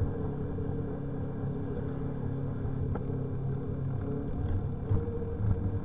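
Steady low rumble of a mountain bike rolling along a wet paved path, picked up by a camera mounted on the bike, with a faint click or two.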